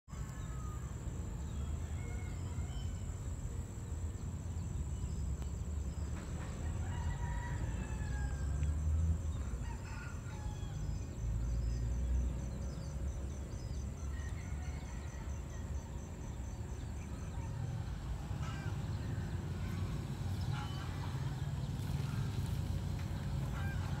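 Chickens and a rooster calling now and then over a steady low rumble, with a faint, rapid high pulsing that stops about three quarters of the way through.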